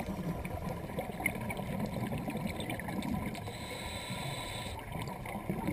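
Muffled underwater sound picked up through a GoPro's housing: a low rushing and gurgling of water with scattered faint crackles.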